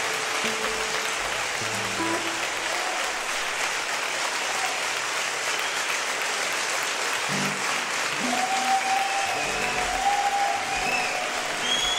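Concert audience applauding steadily, with a few whistles and shouts near the end. An acoustic guitar plays scattered notes underneath.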